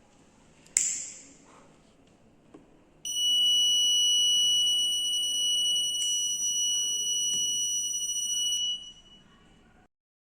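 Electronic buzzer of an Arduino gas-leak alarm sounding one steady high-pitched tone for about six seconds, starting about three seconds in and cutting off suddenly: the alarm set off by the gas sensor detecting gas. A brief sharp noise comes about a second in, before the tone.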